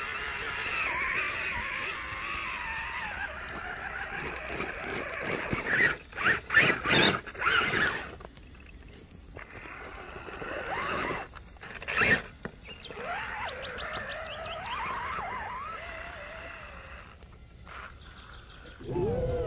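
Axial Wraith radio-controlled rock crawler's electric motor and drivetrain whining, the pitch rising and falling as the throttle changes. Loud bursts of tyres scrabbling and crunching on rock and gravel come about six to eight seconds in and again at about twelve seconds.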